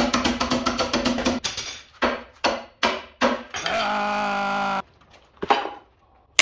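Tools striking and levering at a seized, rust-covered power hacksaw: a fast run of sharp metal knocks, then a few separate bangs. About three and a half seconds in, a man lets out a long frustrated yell held for about a second.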